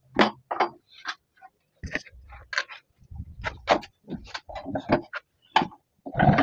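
Irregular knocks and clunks of wood and metal, a dozen or so, as a homemade wood lathe's metal frame and its wooden beam mount are handled and shifted into place.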